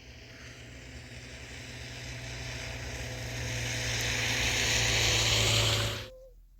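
A motor's steady low hum under a rushing noise that grows steadily louder for about six seconds, then cuts off suddenly.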